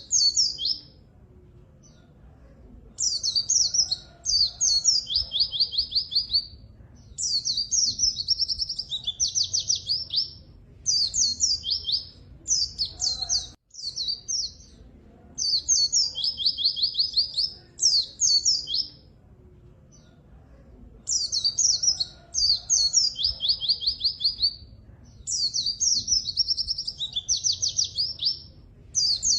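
White-eye (pleci) singing continuously: phrases of fast, high twittering trills, each a second or two long, repeated with short pauses between.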